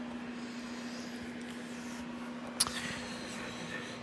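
Handheld phone being carried: faint handling noise over a steady low hum, with one sharp click about two and a half seconds in.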